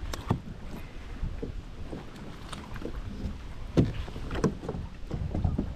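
Scattered knocks and rustles as a landing net and a freshly landed largemouth bass are handled in a kayak, over a low steady rumble.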